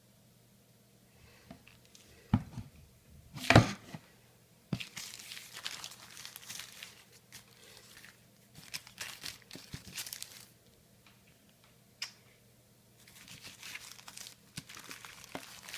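Polyethylene plastic film being crumpled and handled, crinkling in irregular bursts with a sharp loud crackle about three and a half seconds in.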